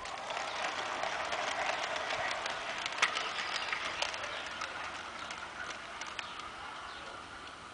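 Model goods train hauled by a Ge 6/6 I model locomotive rolling past, the motor whirring and the wheels clicking over the rail joints. The sound swells in the first second and slowly fades as the train goes by.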